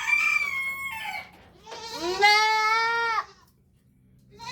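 A goat kid bleating loudly twice, each call about a second and a half long, as it is held for an injection near the neck.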